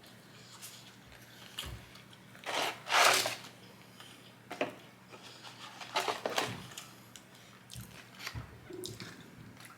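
Close-miked eating sounds: chewing and biting with small mouth clicks, and louder noisy smacks or crunches about three seconds in and again around six seconds.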